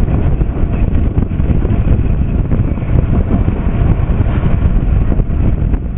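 Wind buffeting the microphone, a loud rough low rumble.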